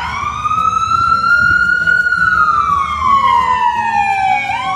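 Ambulance siren in its slow wail: one long rise in pitch over about two seconds, then a slower fall, starting to rise again near the end.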